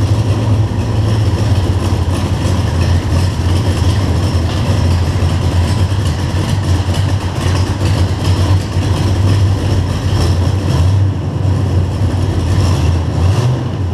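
Turbocharged Ford V8 of a 1968 Ford Torino idling steadily with a misfire, which the owner linked to a very lean idle mixture (air/fuel above 18:1).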